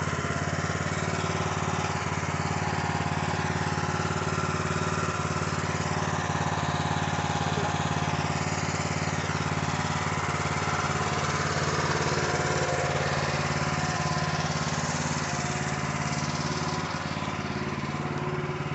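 Small gas engine of a Harbor Freight towable trencher/backhoe running steadily, held at low revs for its break-in period.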